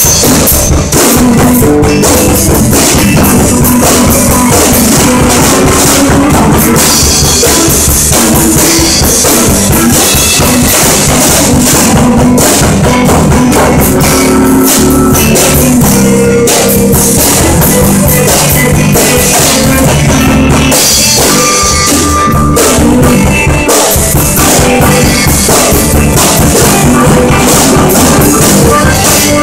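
Live rock band playing loudly, drum kit prominent with bass drum, under electric guitar.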